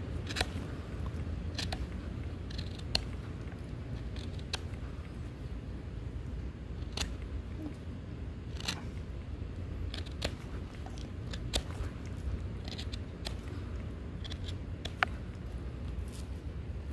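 Knife blade cutting into oak wood: sharp, irregular snaps and clicks as the edge bites and chips fibres, about one every second or two, over a low steady rumble.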